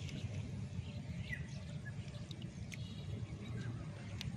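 Outdoor ambience: a few short bird chirps over a steady low rumble, with scattered faint clicks.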